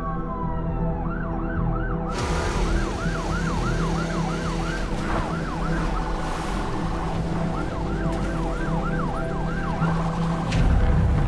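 Ambulance siren in fast yelp mode, its pitch rising and falling about three times a second, fading for a couple of seconds in the middle and then coming back. A steady hiss cuts in about two seconds in.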